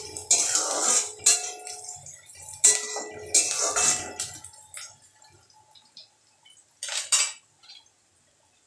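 Metal spatula scraping and clanking against a steel kadhai as sliced onion is stirred, the strokes ringing, for the first four and a half seconds. After that it falls quiet, apart from a short clatter about seven seconds in.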